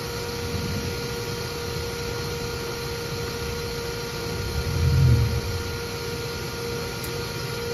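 Bee vacuum's motor running steadily with a constant hum, air drawn through its hose. About five seconds in, a low thump as the plastic electrical-box lid is set down on the ground.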